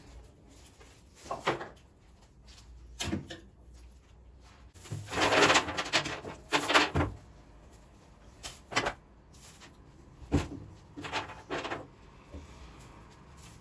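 Refrigerator drawers and containers being handled: a series of separate knocks and clatters with rustling, the busiest stretch about five to seven seconds in.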